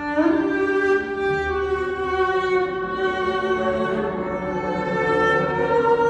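Recorded cello music played back over Audio Note AN-K loudspeakers in a room: long bowed notes, with an upward slide into a new note right at the start.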